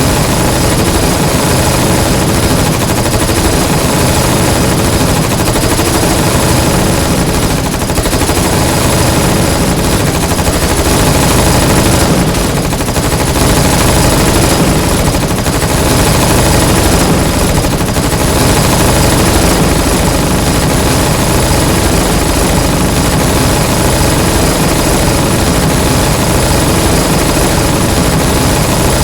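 Sustained automatic submachine-gun fire from many guns at once, a dense continuous sound with no breaks.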